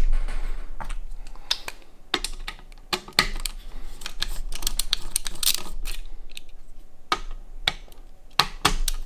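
Irregular light clicks and rattles of PC cables and plastic connectors being handled inside a cramped small-form-factor PC case.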